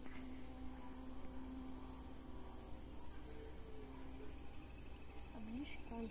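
An insect chirping, a high trill that pulses in a steady rhythm a little faster than once a second.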